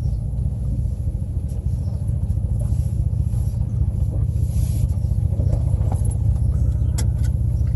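Steady low rumble of a car's engine and running gear heard from inside the cabin, with a single sharp click about seven seconds in.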